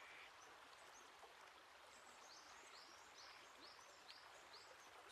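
Near silence: a faint outdoor ambience hiss, with faint high chirps repeating a couple of times a second in the second half.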